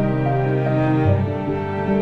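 Background music with long held notes; the bass moves to a new note about a second in.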